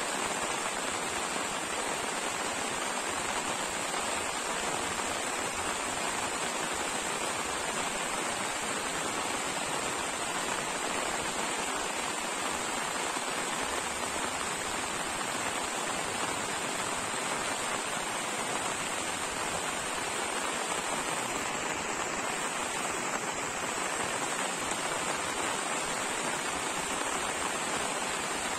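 Heavy rain falling steadily: an even, unbroken hiss of rain.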